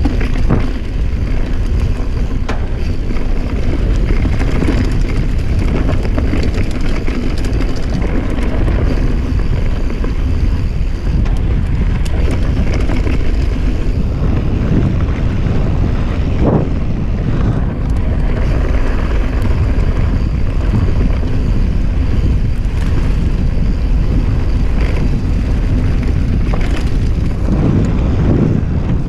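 Wind rushing over the camera microphone, and the knobby tyres of a Norco mountain bike rolling fast over dirt and leaf litter on a singletrack descent. Scattered knocks and rattles come from the bike over bumps.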